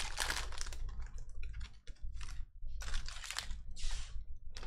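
Foil trading-card pack wrapper crinkling as it is torn open and pulled away, then glossy cards being slid and flicked through by hand: a run of short crinkles and scrapes with brief pauses between them.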